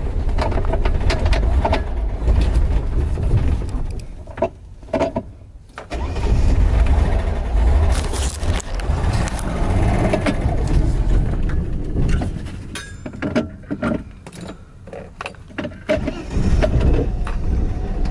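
Classic car engine running on one of its first runs after sitting seven years; its low rumble drops away twice, for about two and then about four seconds, with a few clicks in the lulls, and comes back each time.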